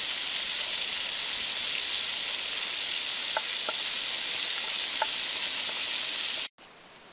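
Skewered whole shrimp deep-frying in hot oil: a steady sizzle with a few brief pops around the middle, cutting off suddenly near the end.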